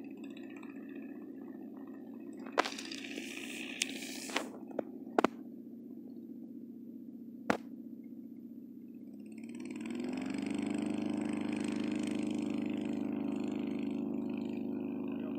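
Distant engine and propeller of a homebuilt Hummel Ultracruiser light plane running at low power, with a few sharp clicks. About ten seconds in the throttle is opened: the engine's pitch rises and it runs louder and steady at higher power.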